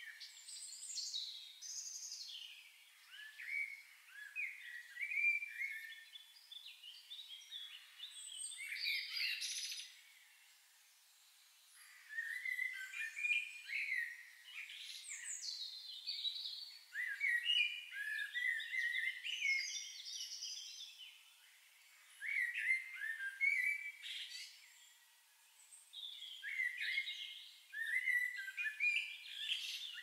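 Birdsong: songbirds singing phrases of quick chirps and warbles, several with notes sweeping downward, separated by short pauses of a second or two.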